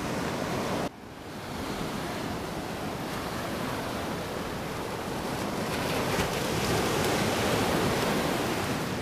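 Ocean surf washing up over the sand, a steady rushing that drops sharply about a second in and then swells again, loudest near the end.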